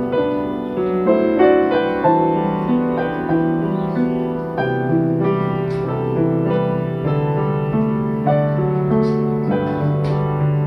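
Solo piano playing a song arrangement: a melody of separately struck notes over held bass notes, at a moderate steady pace.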